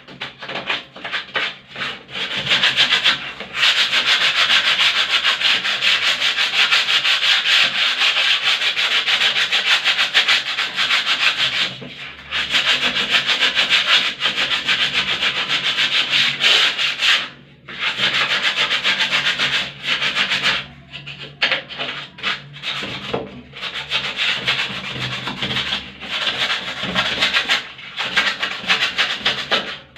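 Sanding a dried skim coat of wall plaster: a continuous, loud gritty scraping of abrasive against the wall, stopping briefly several times before carrying on.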